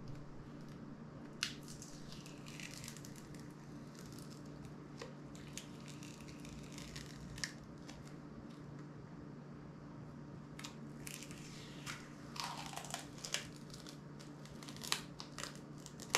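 Hand disassembly of a smartphone: scattered small clicks of tools and parts against the phone's frame, and crinkling as a thin foil sheet is peeled from inside the phone, busiest in the second half. A faint steady hum runs underneath.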